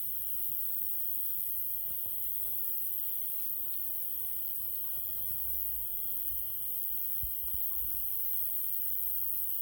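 Crickets chirring steadily in a continuous high-pitched drone, with a few faint clicks and a couple of low thumps about seven seconds in.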